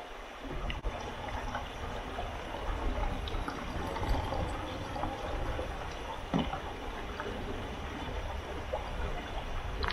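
Running water trickling steadily, with a low rumble underneath.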